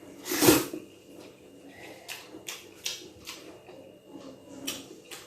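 Close-up eating sounds: chewing and mouth noises with a string of short clicks, and one louder noisy burst about half a second in.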